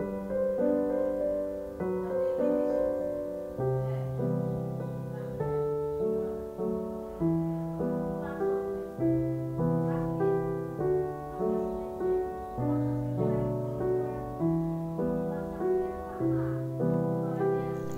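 Background music: a gentle piano tune, played note by note at a steady pace.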